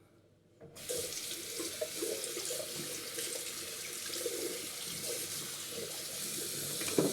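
A water tap turned on about a second in and running steadily into a sink.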